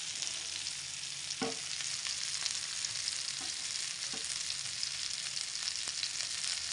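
Masala-coated fish shallow-frying in oil on a flat iron pan: a steady sizzle full of small crackles and pops.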